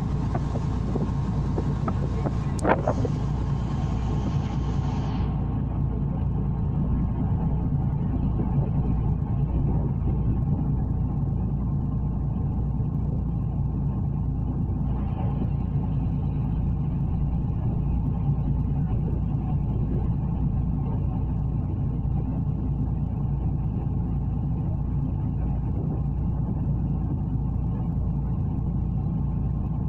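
Ferry's engines running with a steady low rumble, with a single sharp click about three seconds in.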